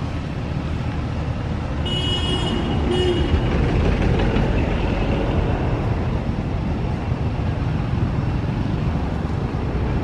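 Steady low outdoor rumble, with two short high-pitched squeals about two and three seconds in.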